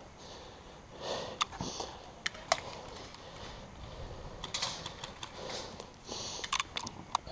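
Scattered sharp clicks and ticks at irregular intervals, over soft rustling of clothing and gear.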